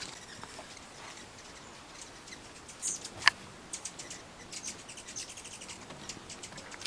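A puppy's claws clicking and pattering on wooden deck boards as it moves about, a quick irregular run of light ticks, with one sharper click about three seconds in.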